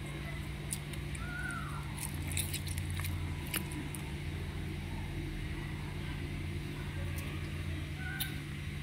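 Light clicks and taps as halved kasturi limes are set into a stone mortar of sambal, over a steady low hum. The sharpest clicks come about two to three and a half seconds in.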